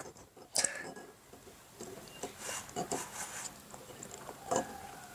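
Light, scattered clicks and knocks of eggs shifting and bumping against a ceramic bowl as hands feel around in it for an egg.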